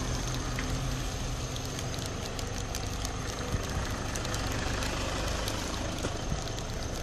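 Car engine idling with a steady low hum, with scattered light ticks over it.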